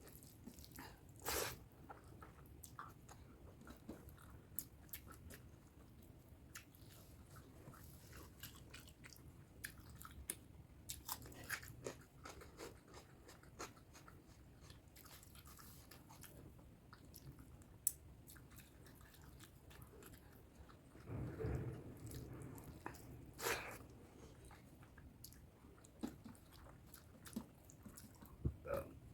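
Close-miked chewing and biting while eating spicy pork curry with rice: irregular small mouth clicks and bites, with a louder stretch about three quarters of the way through.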